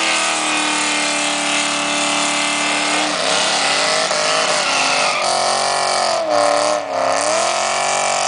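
A drag car's V8 engine held at steady high revs for about three seconds, then revved up and down several times in quick swings.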